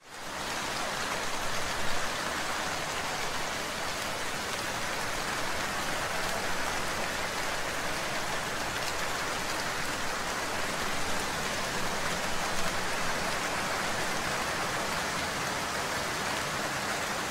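Steady rain falling, a dense even hiss that fades in at the very start.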